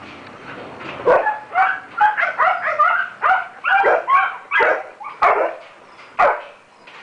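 Shepherd dogs barking and yipping in a quick, uneven run of short calls, about two a second, from about a second in until a little after six seconds, excited by a game of fetch.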